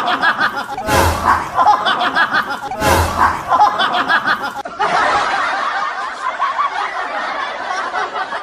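People laughing and snickering, with a sharp thump about every two seconds in the first half; from about five seconds in the laughter turns denser and more even.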